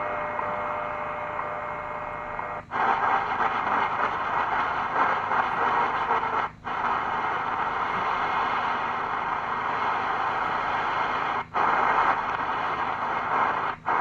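Tecsun PL-330 shortwave radio playing steady static hiss with no program audible. It cuts out for a split second four times as the tuning steps from one stored station to the next.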